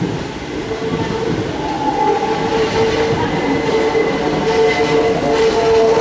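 Hakone Tozan Railway electric train pulling into a station, its running noise growing gradually louder as it nears, with steady high whining tones held over the rumble.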